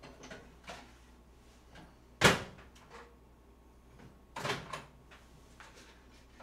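A kitchen door shuts with a sharp bang about two seconds in, the loudest sound here, followed by a softer clatter of knocks a couple of seconds later and a few light clicks.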